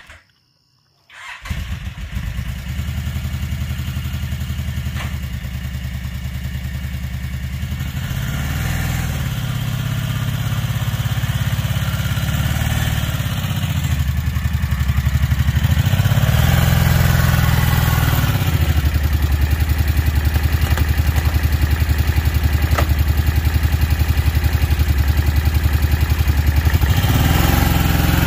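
Kawasaki Brute Force 750 ATV's V-twin engine starting about a second in, then running, its pitch rising and falling three times as the throttle is opened to move off.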